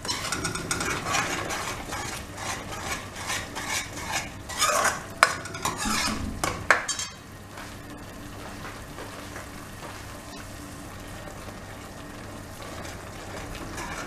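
A metal spoon scrapes and clinks against a metal pan, stirring ground masala paste that sizzles as it fries in hot oil. About seven seconds in the stirring stops, and only a steady, quieter sizzle of the frying paste is left.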